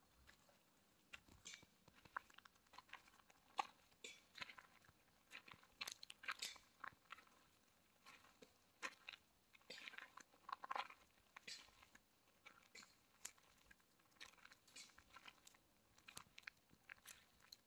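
Faint footsteps crunching on a gravel path, short irregular crunches at about two a second.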